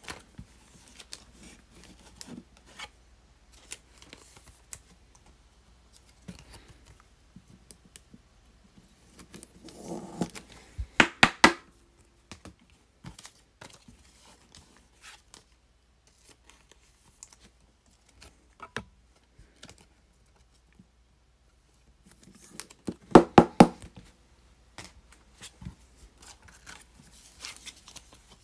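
Trading cards and rigid plastic toploader card holders being handled on a desk mat: light scrapes and scattered taps of card and plastic. Two short runs of rapid loud clicking and clacking come about eleven seconds in and again about twenty-three seconds in.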